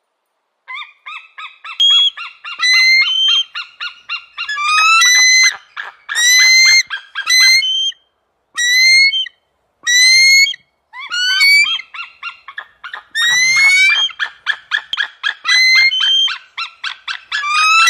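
A bird giving many short, rising, honking calls in quick runs, cut off abruptly several times.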